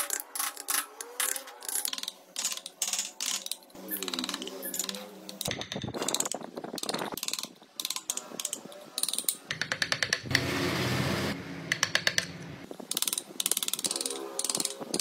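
Hand carving chisels and gouges cutting into a wooden relief panel: an uneven run of sharp clicks and taps as small chips are cut away, with a denser, rougher scraping stretch about ten seconds in.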